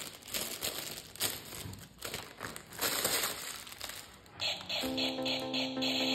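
Crinkling and rustling of plastic toy packaging being handled. About four seconds in, a synthetic electronic sound with rapid beeps and steady tones starts.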